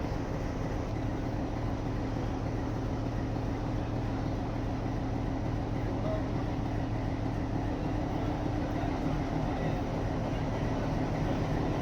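Ooty toy train running, a steady rumble of wheels and carriages with a constant low engine hum.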